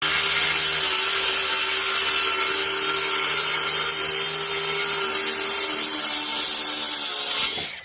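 Circular saw running and cutting through a wooden board, a loud steady whine with the hiss of the cut. The blade is set just short of the board's thickness. The saw stops near the end.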